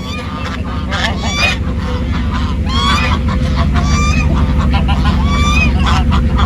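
Farmyard poultry calling over and over, a quick run of short rising-and-falling calls, with a steady low rumble underneath.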